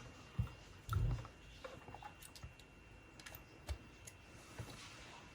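Scattered light clicks and a few soft knocks of a portable MiniDisc recorder and its headphones being handled, with a faint steady high tone underneath.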